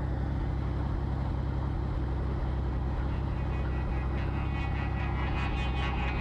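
Helicopter running with a steady low drone. Higher tones build up over the last few seconds.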